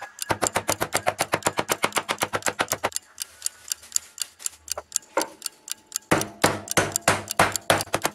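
Fast, even ticking of a clock sound effect, about ten ticks a second, fainter for a few seconds in the middle.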